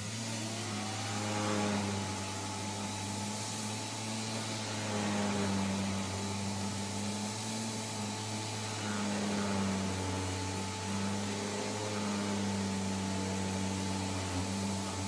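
Handheld orbital sander with a dust-extraction hose running against a wooden propeller blade: a steady motor hum and whine over the hiss of sanding. The whine climbs in pitch over the first couple of seconds, then holds.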